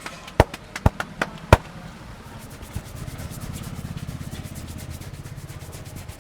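Head massage: four sharp hand smacks about every 0.4 seconds, then, from about halfway in, fast, even rubbing strokes of hands on the scalp and hair for about three seconds.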